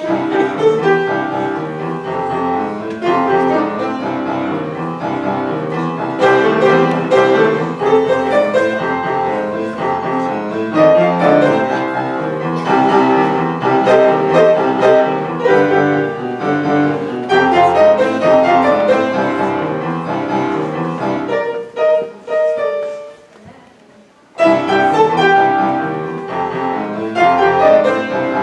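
Piano duet: an upright piano played four hands by two young pianists, a lively classical-style piece of many quick notes. About three-quarters of the way through, the playing dies away for about two seconds, then starts again.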